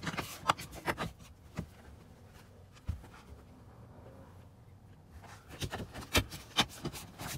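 Plastic kick-panel trim handled and pressed back into place by hand: scattered clicks and taps with light rubbing, and a quick run of clicks near the end as the panel snaps home.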